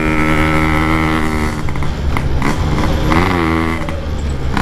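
Yamaha RX-King's 135cc two-stroke single-cylinder engine running through a Packing Power exhaust while riding, holding a steady note, then briefly revving up and back down about three seconds in.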